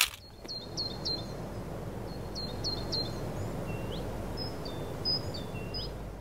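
Small birds chirping in quick runs of short high notes, with a few rising whistled notes later on, over a steady low outdoor ambience.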